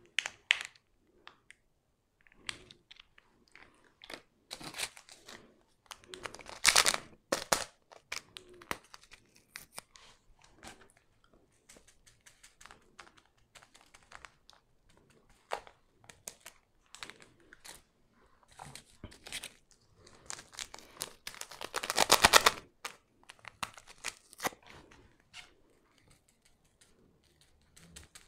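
Small paper condiment sachets for ketchup and chilli flakes being crinkled, torn open and shaken, heard as scattered rustles and crackles. The longest, loudest rustle comes about three-quarters of the way through.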